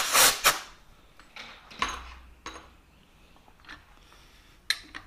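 Compressed-air blow gun blowing metal chips off a machine vise in short loud bursts of rushing air, which stop about half a second in. After that come a few light clicks and knocks of metal being handled.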